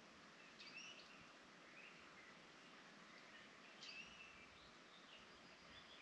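Faint woodland ambience: a steady hiss with scattered songbird chirps, two sharper calls standing out about a second in and about four seconds in.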